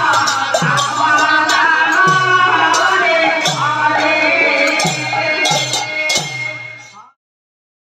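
Odia nama sankirtana: a group singing a devotional chant to a drum and sharp hand-cymbal strokes. The drum's deep strokes slide down in pitch, about one a second. The music fades out and stops just before the end.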